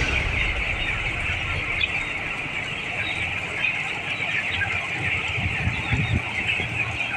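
A large flock of chickens in a poultry house, many birds calling at once in a dense, steady din.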